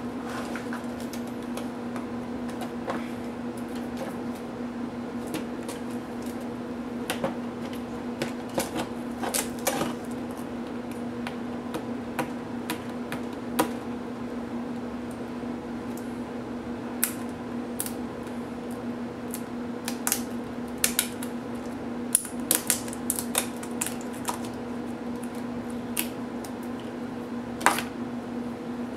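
Irregular light clicks and taps as a laptop's LCD panel, its plastic bezel and its cables are handled and taken apart by hand, over a steady low hum.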